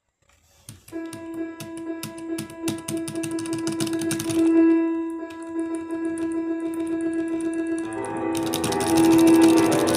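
Music with a long sustained note, overlaid by a rapid, irregular series of sharp clicks. The clicks are the unwanted clicking noise the recording is apologised for. The music thickens into a fuller sound about eight seconds in.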